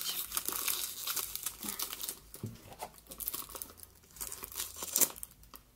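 Packaging crinkling and tearing as a perfume box is unwrapped by hand, in quick irregular crackles with one sharper snap about five seconds in.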